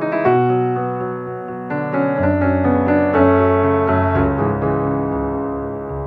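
Background music: a gentle piano tune playing chords and notes.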